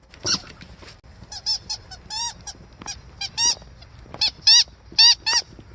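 A squeaky dog toy squeaked over and over as a husky chews it: about a dozen short, high squeaks, many coming in quick pairs.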